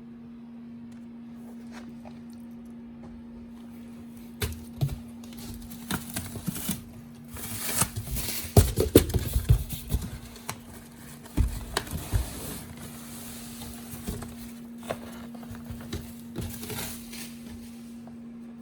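Pokémon card packaging being handled and opened: intermittent crinkling, rustling and tapping, busiest and loudest about eight to ten seconds in, over a steady low hum.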